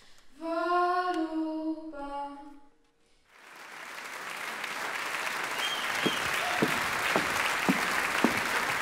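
A young woman's solo singing voice holding the last notes of a song, ending a little under three seconds in; after a brief silence, audience applause builds and carries on.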